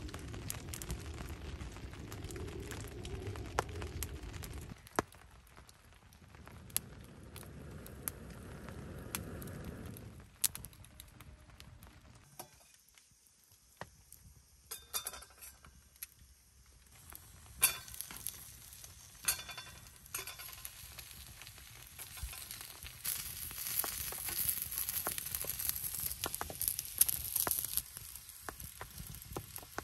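Camp cooking: scattered sharp clinks and taps of utensils and cookware, then a steady sizzle of food frying from about two-thirds of the way in.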